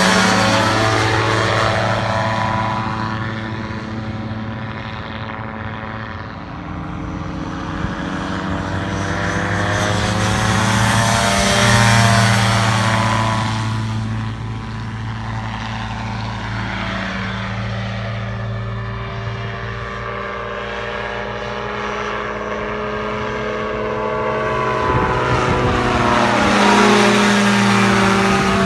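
Dominator single-seat gyroplane's engine and propeller running as it flies past, growing louder about twelve seconds in and again near the end, its pitch bending as it goes by.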